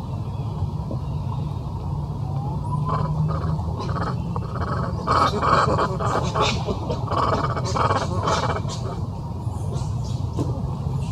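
Animal calls: a short rising whistle about three seconds in, then a run of short, rapid squeaky calls from about four to nine seconds in, over a steady low rumble.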